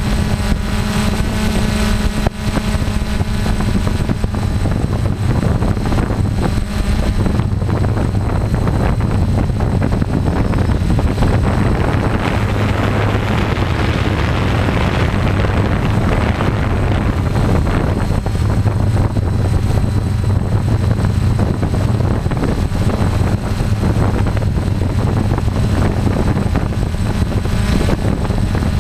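DJI F550 hexacopter's six electric motors and propellers running steadily while it hovers and slowly descends, heard up close from the camera on its frame.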